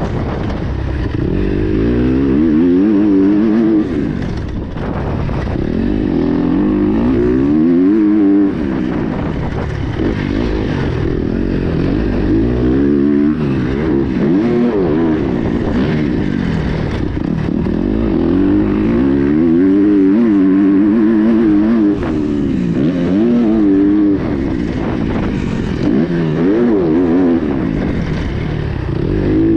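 Kawasaki KX250X's four-stroke single-cylinder engine, heard from on board while ridden on a dirt trail. It revs up and eases off over and over, with brief drops where the throttle is shut.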